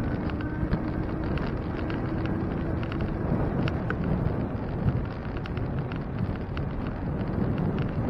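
Wind buffeting the microphone of a bicycle-mounted camera while riding, with a steady rumble of tyres on pavement and scattered small rattles and clicks. A low steady hum fades out about three seconds in.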